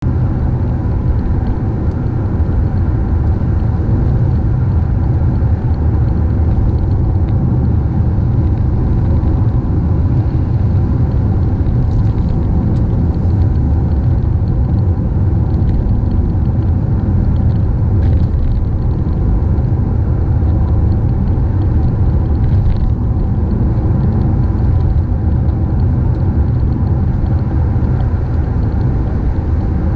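Car driving steadily on a rain-wet road, a constant low rumble of tyre, road and engine noise.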